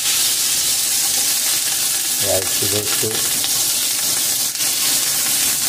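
Hot oil sizzling steadily in a large aluminium pot as cooked rice is spooned into it and turned with a wooden spatula.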